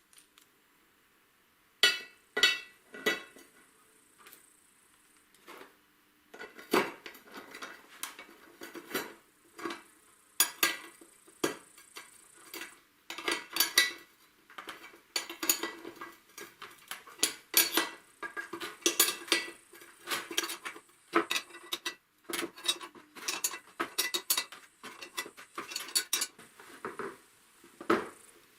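Irregular clattering and knocking of hard parts being handled and fitted together: many sharp clicks and taps, a few at first about two seconds in, then busy and almost continuous.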